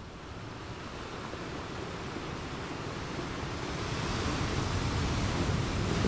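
Sea waves washing: a steady rushing surf noise that slowly grows louder.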